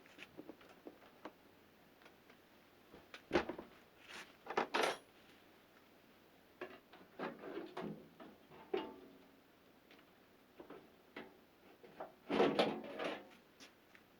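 Scattered knocks, clinks and rattles of a microwave oven's metal casing and tools being handled as the oven is taken apart, loudest in a cluster near the end.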